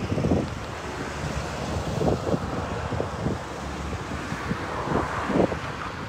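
Wind buffeting the microphone in irregular gusts over the steady rush of a shallow, muddy flooding river.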